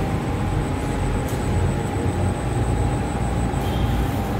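Steady, loud low rumbling noise with a faint constant whine, like passing road traffic or wind on the microphone.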